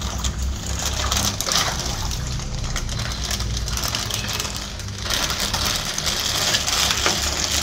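Water pouring and splashing as a plastic fish bag is emptied into an aquarium tank, growing louder about five seconds in. A steady low hum runs underneath.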